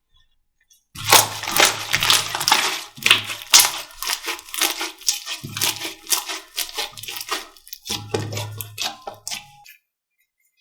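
Slime being squished and pressed by hand, with dense crackling and popping. It starts about a second in and stops shortly before the end.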